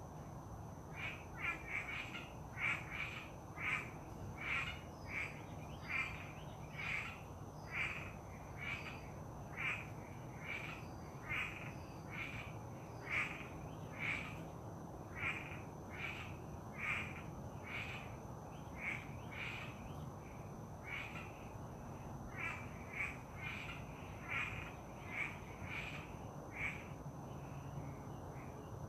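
An animal calling over and over in short calls, roughly one a second, with a steady high thin tone behind it.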